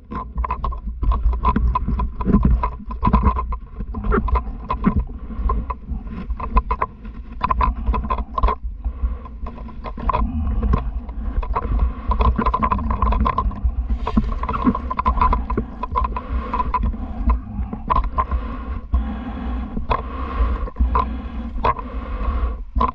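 Shallow river running fast over a cobble bed, with a constant irregular splashing rush and a heavy low rumble underneath.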